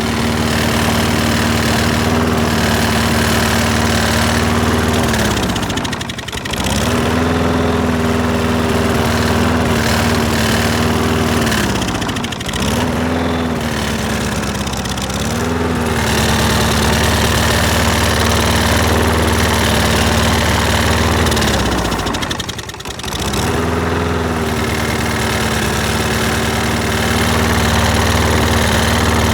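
Lawn mower engine running fast while Gumout carburetor cleaner is sprayed into its carburetor; its speed sags sharply and picks back up four times, bogging almost to a stall as the cleaner goes in. The owner suspects a partly plugged carburetor starving it of fuel.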